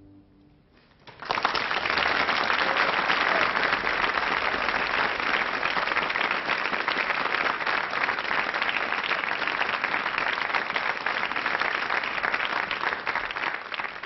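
The last acoustic guitar chord dies away, then about a second in a studio audience breaks into applause that goes on at a steady level.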